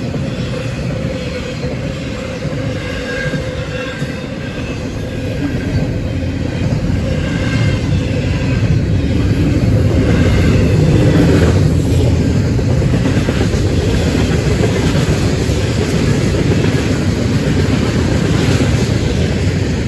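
Florida East Coast Railway freight train rolling past: a steady rumble of rail cars on the track that grows louder toward the middle and stays loud.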